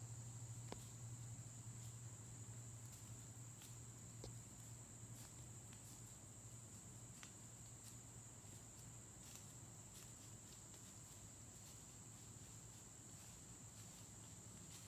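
Faint, steady high-pitched drone of an insect chorus, with a few scattered faint ticks and rustles.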